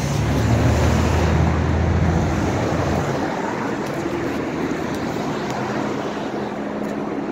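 City street traffic noise: a low engine rumble for about the first three seconds that then fades, over a steady wash of road noise.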